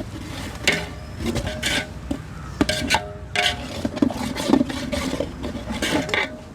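Metal spoon scraping and knocking against a cooking pot in a run of irregular strokes, as ginger-garlic paste is stirred into deep-fried onions.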